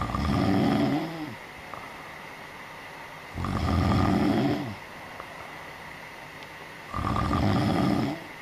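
A sleeping cat snoring: three snores, each lasting a little over a second and about three and a half seconds apart.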